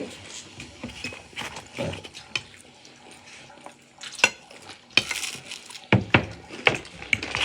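Dishes and cutlery clinking and clattering: a scattered run of sharp knocks and taps, busier in the second half.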